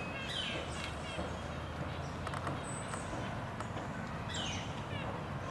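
Small birds chirping: quick downward-sliding chirps near the start and again near the end, and thin high notes, with a few faint taps in the middle over a steady low background hum.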